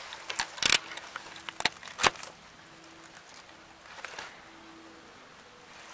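Handling noise from a camera held against a hand or clothing: a few sharp knocks and rubs in the first two seconds, the loudest about two seconds in, then little more than a faint rustle.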